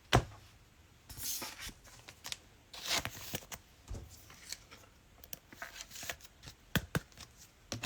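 Mosaic football trading cards and packs being handled: cards slid and flipped against each other, with scattered light clicks and short papery rustles.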